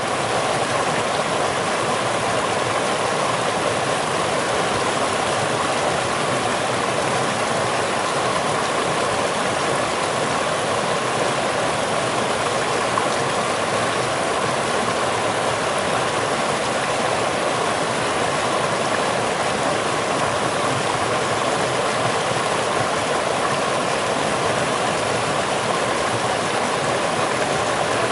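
Steady running water: an even, unbroken rush that holds the same level throughout.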